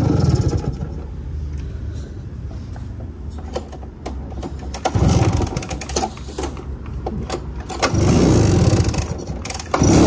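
Vintage Suzuki motorcycle engine running at idle, with the throttle blipped briefly about halfway through and held up for nearly two seconds near the end; its engine note is taken as characteristic of Suzuki.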